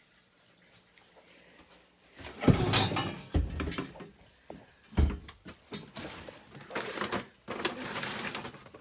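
Rummaging: about two seconds in, loud rustling starts, broken by several bumps and knocks, as bags and clothes are handled in a closet and the phone filming is jostled.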